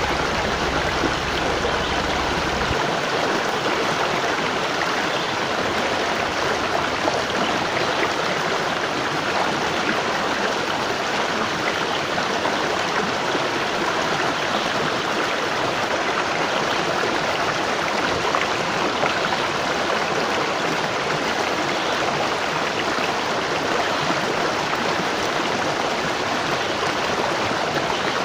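Waterfall: the steady, unbroken rush of falling water. A deeper low rumble sits underneath for the first three seconds or so, then drops away.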